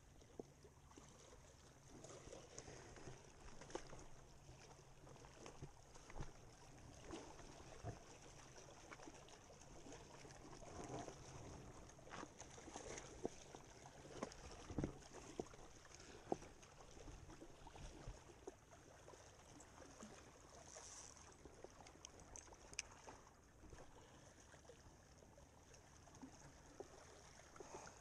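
Near silence: faint small waves lapping at the breakwater rocks, with scattered light clicks and knocks as the spinning rod and reel are handled.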